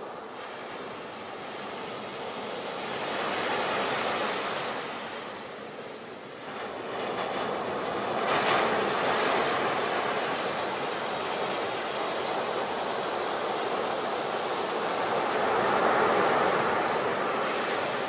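Ocean surf: waves breaking and washing onto the shore in a continuous rush that swells and ebbs, with the loudest crash about eight seconds in and another swell near the end.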